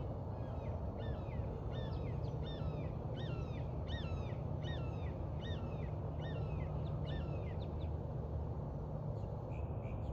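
A bird calling over and over, a hooked call about twice a second, with a quicker chirping taking over near the end, above a steady low rumble.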